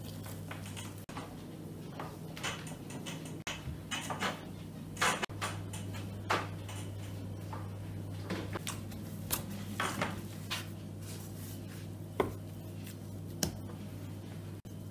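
Hand-kneading of şəkərbura dough in a glass mixing bowl, with scattered light knocks and clinks of the bowl and kitchenware, over a steady low hum.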